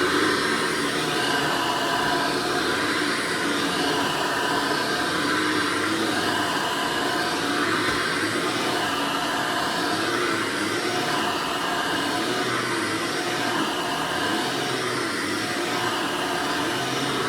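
1993 Hoover Elite U4617 upright vacuum cleaner running steadily, its motor whine wavering slightly in pitch every two to three seconds.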